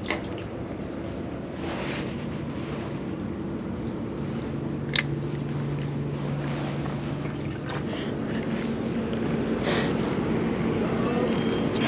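Steady wind and water noise, with a faint low motor hum in the second half and a couple of sharp clicks.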